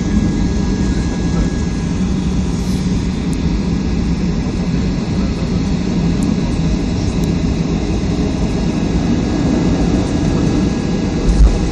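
Cabin noise of a Boeing 737-500 airliner heard from inside: a steady low roar of engines and airflow, with a single thump near the end.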